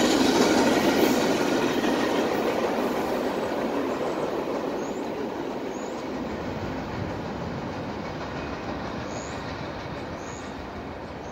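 Freight cars rolling past, steel wheels on the rails, the noise fading steadily as the end of the train moves away.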